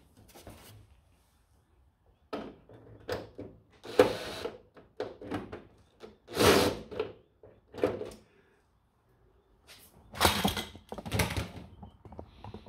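Photocopier parts being handled and pried apart: irregular knocks, scrapes and rattles of plastic and metal, with a few longer scraping rasps.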